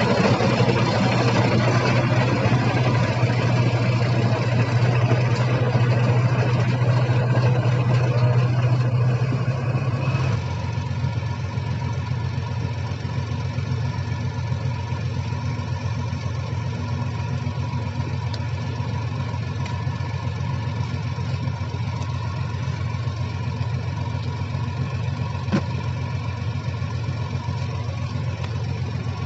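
Heavy construction machine's diesel engine running steadily with a low hum. About ten seconds in, the sound changes abruptly and drops a little in level, then carries on as steady engine noise.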